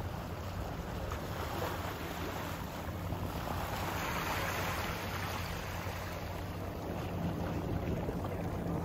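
Wind blowing across the microphone over open water, with waves lapping and a steady low hum underneath; the wind swells briefly about halfway through.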